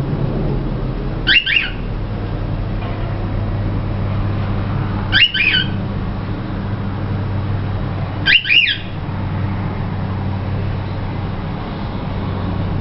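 Young cockatiel giving short chirping whistles three times, each a quick pair of notes: a young bird beginning to practise whistling. A steady low hum runs underneath.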